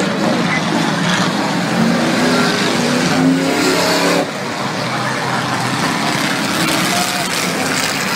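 Engines of several demolition derby cars running and revving together on the track, several pitches rising and falling over one another.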